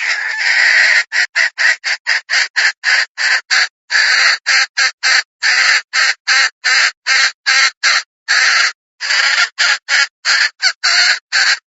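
Red junglefowl hen, a tame decoy (denak) hen, calling in a rapid run of short, harsh clucking notes, about three a second, after a longer opening note.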